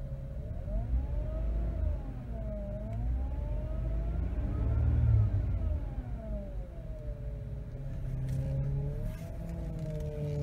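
A Toyota's power steering pump whining over the idling engine as the steering wheel is turned, the whine rising and falling in pitch with the wheel's movement. The pump is still very noisy despite a Lucas power steering repair additive, which has not worked.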